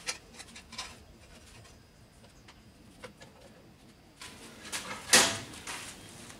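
Workshop handling noises, a few light clicks and shuffles, then a sharp metallic knock about five seconds in as a hammer is set down on a steel bench vise.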